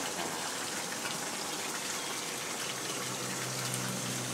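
Steady running water from a garden koi pond, an even splashing rush. A faint low hum joins it about three seconds in.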